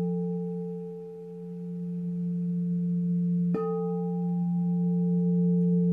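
Large singing bowl ringing with a strong steady low hum and a few higher overtones, the sound dipping and swelling again. It is struck once more about three and a half seconds in, with a sharp onset, and rings on.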